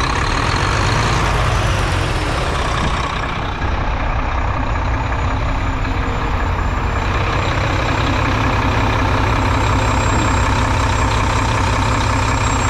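Mack GU713 dump truck's diesel engine idling steadily, with an even low pulsing.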